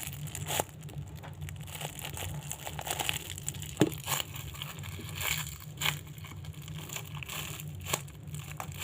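Irregular crinkling and crackling of plastic packaging being handled, over a steady low hum.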